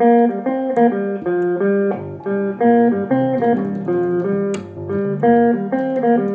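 Music led by a plucked-string instrument playing a quick melodic line, its notes changing pitch several times a second. A single sharp slap cuts through about four and a half seconds in.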